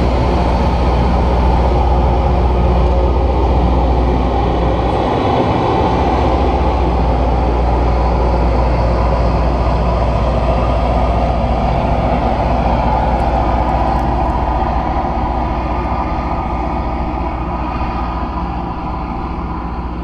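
Loram rail grinder train passing close by, with its diesel engines running and steel wheels rolling on the rail in a loud, steady noise. The noise eases off over the last few seconds as the rear car moves away.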